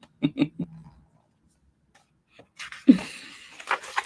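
A man's short chuckles, then a brief vocal sound and paper rustling as a hardcover picture book's page is turned.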